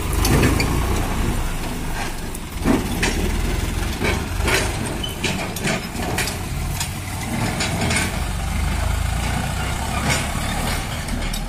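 Swaraj 744 FE tractor's three-cylinder diesel engine running steadily as it pulls a loaded trolley away, with scattered clicks and knocks over the engine.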